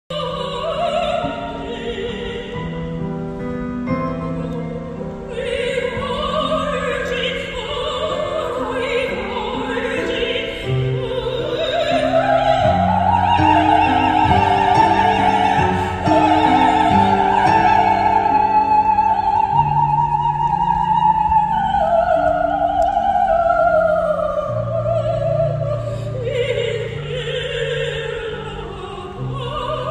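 Operatic soprano singing with wide vibrato over instrumental accompaniment, amplified in a large hall. Her line climbs to a long high held note around the middle, then falls back.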